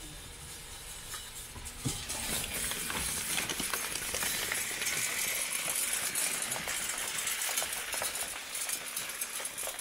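A SaltDogg truck salt spreader's spinner throwing rock salt, the granules pattering and clinking on the concrete and against a rubber mat behind the truck. The patter thickens about two seconds in and then runs on as a dense, steady rattle.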